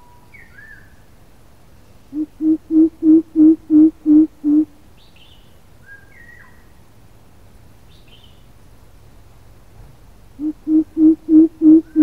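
Coucal giving its deep hooting call. About two seconds in comes a run of some eight evenly spaced low notes, about three a second, growing louder, and a second run starts near the end. A few short, higher chirps sound between the runs.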